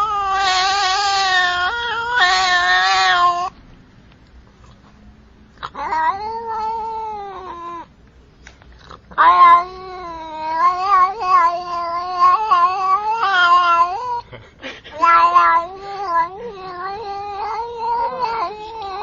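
A cat meowing in long, drawn-out yowls with a wavering pitch, several calls in a row with short pauses between them.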